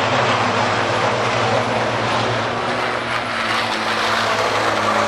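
Racing trucks' turbo-diesel engines running hard on the circuit: a loud, steady drone whose engine note shifts a little.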